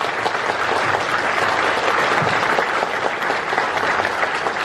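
Audience applauding steadily, a dense roomful of clapping hands.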